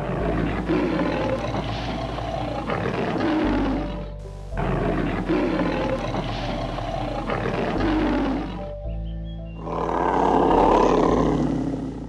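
Lion roaring in three long roars of a few seconds each, with short breaks between them, over background music with sustained notes.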